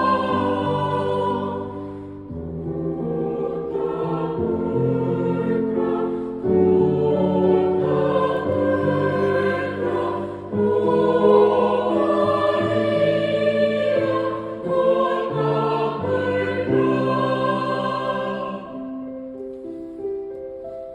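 Church youth choir singing a hymn in harmony over an accompaniment, with long held notes. The voices stop near the end, leaving the accompaniment alone.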